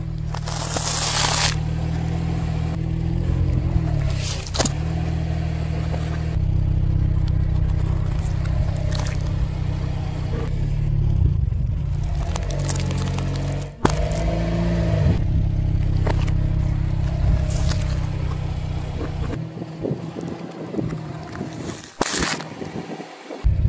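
A car tyre rolling slowly over brittle food, a stack of crispy rice cakes and a row of hard-candy lollipops, crushing it with several sudden bursts of cracking and crunching. Under the crunches the car's engine idles with a steady low hum.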